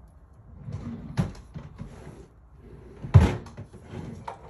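Rummaging through cupboards and drawers: a series of knocks and clatters, with one loud bang about three seconds in.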